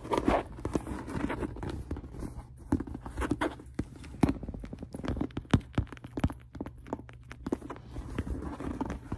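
Empty leather handbag handled and tapped by hand, giving an irregular run of sharp taps and knocks on the leather with some rustling between them.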